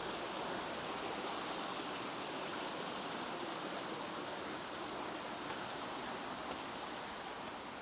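Steady rushing of a small stream pouring over a mini waterfall.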